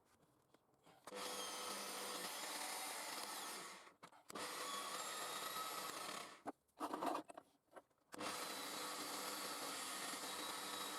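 Homemade 6300 rpm belt grinder running with a steady abrasive rasp, as if a workpiece is held against the belt, in three stretches separated by abrupt breaks, with a few short bursts in the second break.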